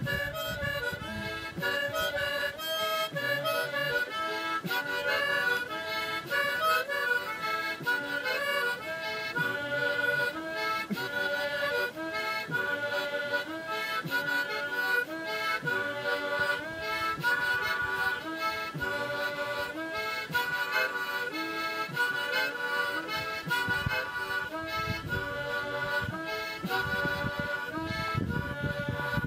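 Background music: an instrumental tune of quick, short reedy notes, harmonica-like, that carries on steadily throughout.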